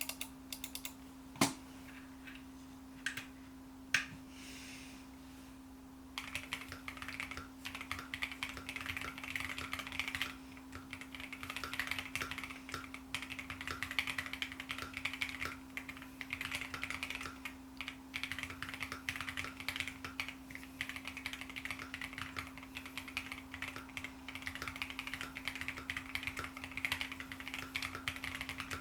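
Keychron Q1 V2 mechanical keyboard with Wuque Studio Morandi switches and XDA-profile keycaps, tape-modded, being typed on. A few single keystrokes come first, then fast continuous typing from about six seconds in.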